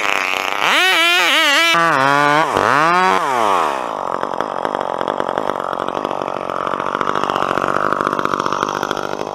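Two-stroke gas chainsaw cutting through a tree trunk, the engine revving with its pitch rising and falling. About three and a half seconds in it drops to a steady idle once the cut is finished.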